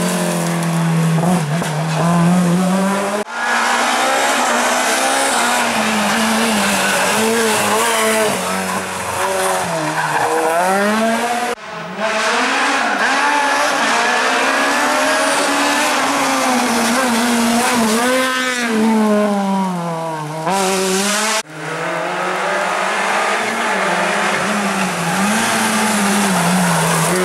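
Small hatchback rally cars (Renault Clio, Suzuki Swift, Peugeot 106) driven hard through tight bends one after another, engines revving up and dropping back with throttle lifts and gear changes. The sound cuts abruptly from one car to the next four times.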